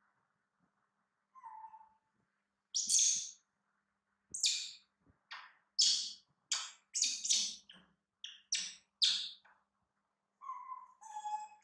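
Young macaques giving a quick string of short, high-pitched squeaks and chirps, many dropping in pitch, starting about three seconds in. A lower whistled coo sounds once before them and again near the end.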